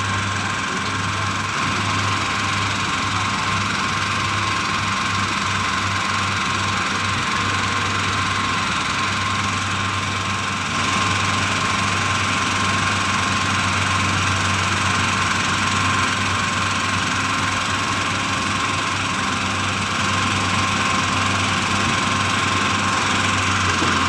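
Excavator's diesel engine running steadily, with a constant whine over a low hum; it gets a little louder about eleven seconds in.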